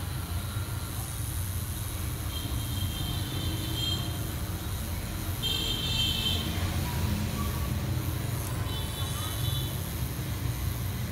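Tattoo machine running with a steady low hum as its needle works into the skin.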